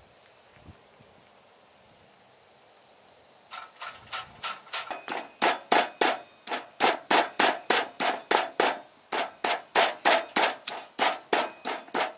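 Stone pestle pounding in a stone mortar, starting about three and a half seconds in and going at about three strikes a second. Each strike is a sharp knock with a short ring.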